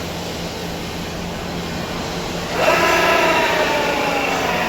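Metal spinning lathe running with a steady hum; about halfway through, a loud squeal sets in and its pitch slowly falls.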